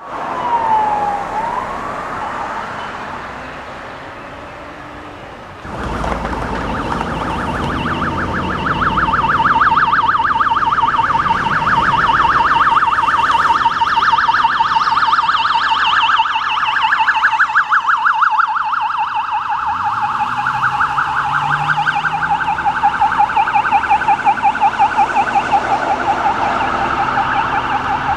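Police car sirens. A slow wail glides down and back up in the first couple of seconds. After a break about six seconds in, a fast-warbling yelp takes over and keeps going, with a vehicle engine briefly speeding up under it about two-thirds of the way through.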